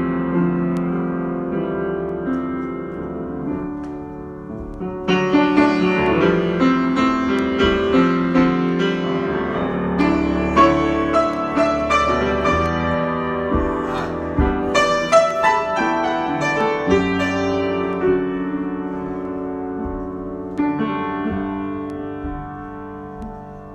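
Solo piano improvisation: slow held chords, then a busier run of notes from about five seconds in, settling back into quieter sustained chords near the end.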